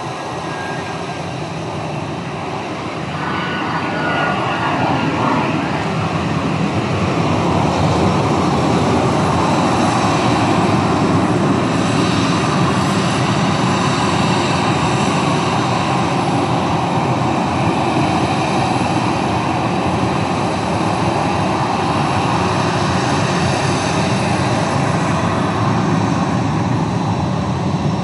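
Twin-engine jet airliner's turbofan engines running as it taxis, a steady rushing noise with a faint high whine that swells between about three and eight seconds in and then holds steady.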